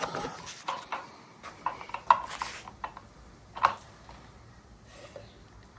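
Scattered light knocks and clicks of tools and parts being handled, the two loudest about two seconds in and a little after three and a half seconds in.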